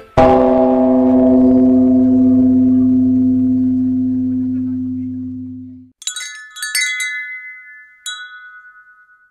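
A deep bell tone struck once rings for about six seconds and cuts off suddenly. Then a wind chime sounds with several quick, high strikes that ring on and fade.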